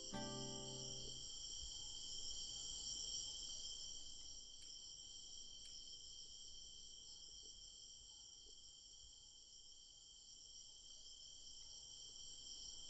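A steady chorus of crickets chirring at night, with several unbroken high-pitched tones. The last notes of a guitar trio ring out and fade away in the first second.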